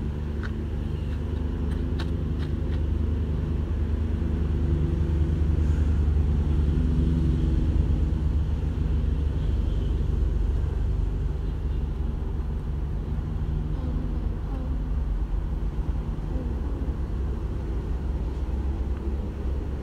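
Steady low mechanical rumble with a faint hum of several steady tones, growing a little louder toward the middle and easing off again.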